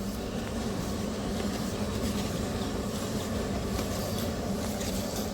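Steady rumbling noise with a constant low hum underneath, unchanging throughout.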